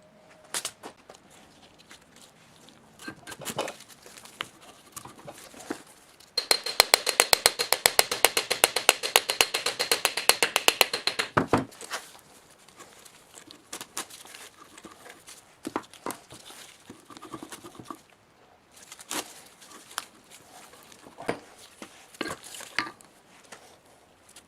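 Workshop handling noises: scattered clicks and knocks of parts and tools. About six seconds in comes a run of rapid, even clicking or scraping strokes, about ten a second, lasting some five seconds.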